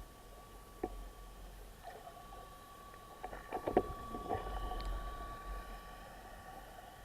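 Faint underwater sound: a steady thin tone with a low rumble, broken by a few short clicks and knocks, the loudest cluster about three and a half seconds in.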